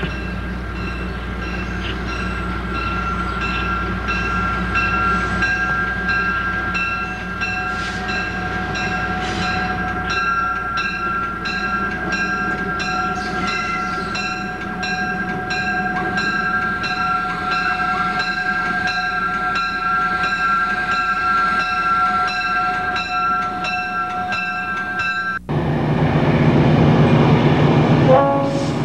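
EMD E8 diesel locomotive approaching slowly with its bell ringing steadily, about two strikes a second, over the low sound of its diesel engine. About 25 seconds in the sound cuts abruptly to the louder rumble of a passing freight train.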